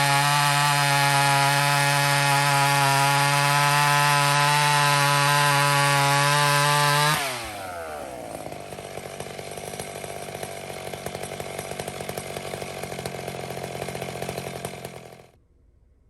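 Two-stroke chainsaw with a 32-inch bar running at full throttle through a cut, with a steady high engine note. About seven seconds in the throttle is released and the revs fall away; the saw then runs at a lower, rougher level until the sound cuts off suddenly near the end.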